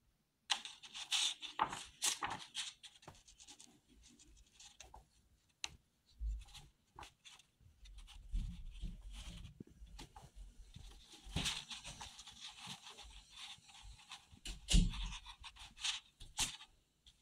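Sketchbook paper rustling and rubbing as the page is handled, in irregular scratchy clusters, with a few low bumps from handling.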